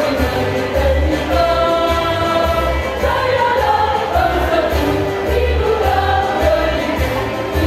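Women's choir singing, moving through a series of long held notes.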